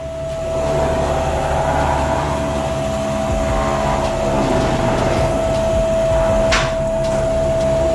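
Chevrolet 305 small-block V8 running through a single Flowmaster muffler, soon after a cold start. It gets louder about half a second in and its pitch shifts. A steady high whine sits over it, and there is a short sharp noise about six and a half seconds in.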